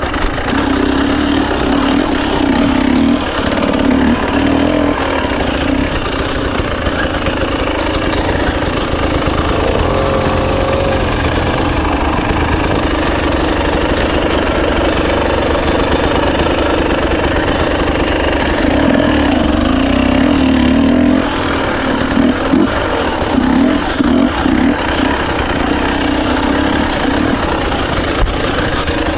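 Husqvarna TE300i 300 cc two-stroke single-cylinder enduro motorcycle engine running under changing throttle. Steadier stretches give way near the end to choppy on-off blips of throttle.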